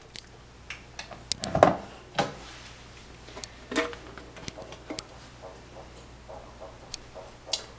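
Scattered light knocks and clicks of a metal pot and other kitchen containers being handled over a countertop, with a louder knock about one and a half seconds in.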